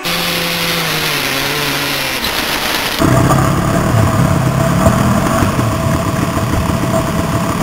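A dirt bike engine running, its pitch dropping a little. About three seconds in, a sudden cut to several dirt bikes running together, louder, their engine pitch rising and falling.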